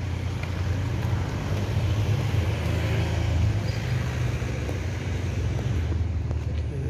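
A motor vehicle engine running steadily close by: a continuous low rumble.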